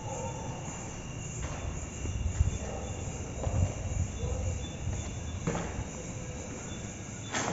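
Footsteps and handling knocks from a handheld camera carried through a room, with a few sharp clicks, over a faint steady high-pitched hum.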